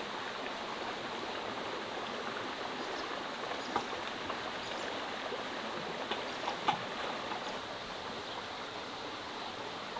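Steady rushing of running water, like a stream, with a few faint short ticks about four and seven seconds in.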